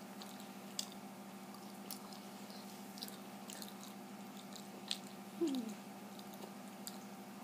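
A person chewing food: faint, scattered wet mouth clicks. About five seconds in comes a short falling 'mm' from the eater.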